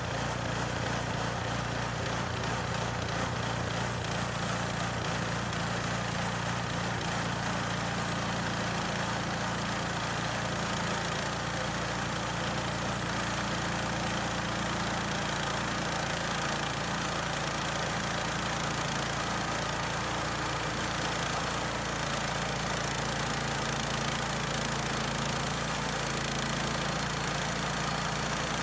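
Small gasoline engine of a Harbor Freight portable bandsaw sawmill running steadily at an even speed.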